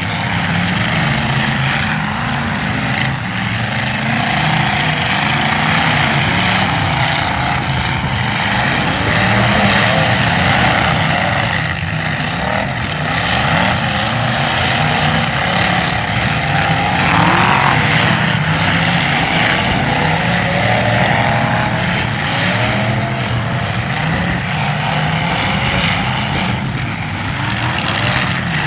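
Several demolition derby cars' engines running loud and revving up and down together, with an occasional impact.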